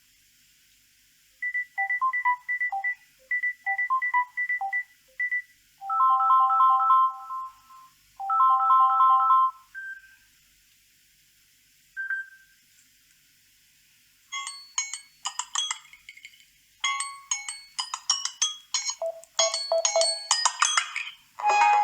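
Samsung Galaxy A20 preset alert tones played one after another through the phone's speaker. First come two runs of quick electronic beeps, then two held chimes and two single short tones, and finally a fast run of plinking melodic notes.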